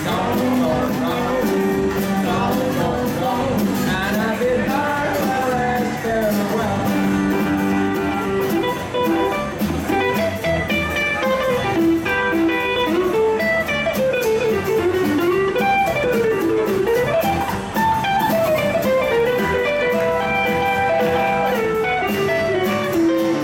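Live rockabilly band playing: an electric guitar takes a lead line with bending, sliding notes over strummed acoustic guitar, upright double bass and drums.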